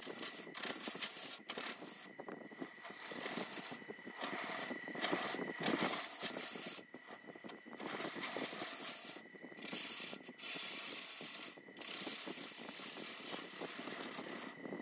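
Bowl gouge cutting wood inside a spinning maple burl bowl on a wood lathe: a loud, rough, rattling cut that stops briefly several times as the tool is lifted and set again.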